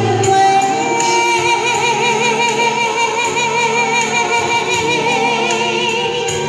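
A woman singing a slow ballad through a handheld microphone and portable PA speaker over a backing track, holding long notes with wide vibrato.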